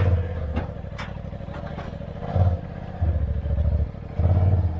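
A Polaris RZR Turbo S side-by-side's engine being given short, repeated bursts of throttle while it creeps down off a trailer, with a few knocks in between.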